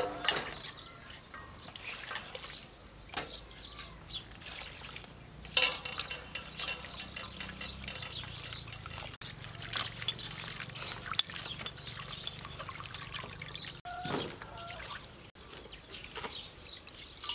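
Water poured from a plastic dipper into a stainless steel bowl, then splashing and trickling in irregular bursts as broccoli florets are washed by hand.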